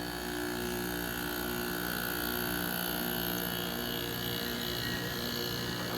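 1988 Carrier International 5200 BTU window air conditioner running just after its Toshiba rotary compressor has kicked on for cooling: a steady, even hum from the compressor and blower.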